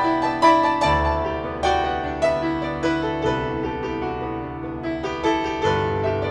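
Background music: a piano playing a slow melody of struck, fading notes over held bass notes.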